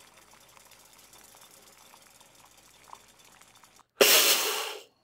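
Faint simmer of a pot of spiced water for about four seconds. Then a NutriBullet blender runs in a single loud pulse of about a second, grinding whole mustard seeds, and cuts off suddenly.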